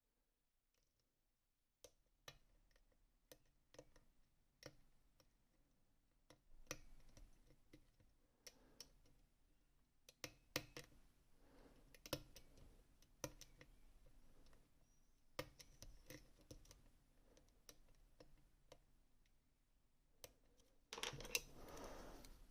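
Faint, scattered clicks and taps of a lock cylinder and small metal parts being handled, with a louder rustle of handling about 21 seconds in.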